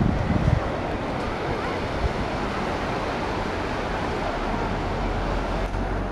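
Small waves washing onto a sandy beach: a steady, even rush of surf, with wind buffeting the microphone at the start.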